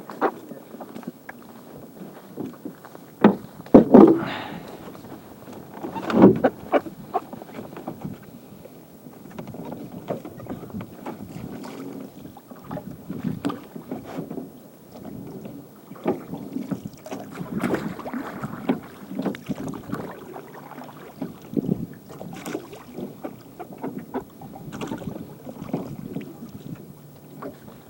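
Irregular knocks, rustling and water splashing from people working at the water's edge by a small boat. The loudest knocks come about three to four seconds in and again near six seconds.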